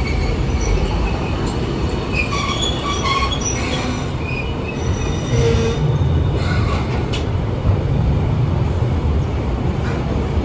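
Hiroshima Electric Railway streetcar No. 711 rolling slowly in alongside the platform, a steady low rumble of wheels on rail. Short high wheel squeals come from about one and a half to four seconds in, and a few clicks follow around six seconds in.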